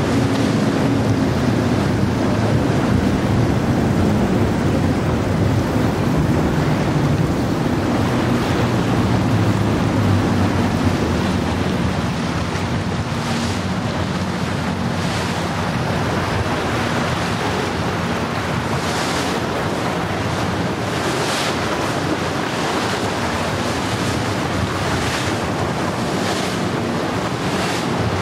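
Motor yachts running through a rough inlet: a low engine drone and the rushing hiss of hull wash and waves under wind noise on the microphone. About halfway through, the engine drone eases and short splashes of spray come every second or few.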